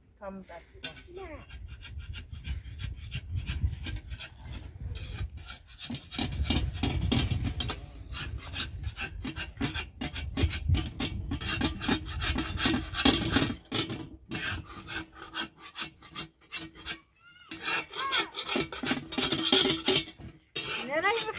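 Small twig fire crackling under an iron saj griddle in dense, irregular clicks, with rasping and scraping as flatbread is handled and turned on the hot iron with a metal tool.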